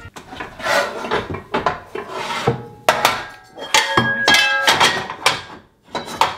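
Pots and pans clattering and scraping as they are rummaged through to get a wok out, with several sharp knocks, some leaving a metallic ring.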